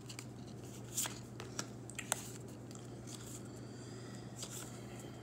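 A stack of Topps baseball cards being thumbed through in the hand, each card slid and flicked to the back of the stack: soft papery rustles and scattered light clicks, over a steady low hum.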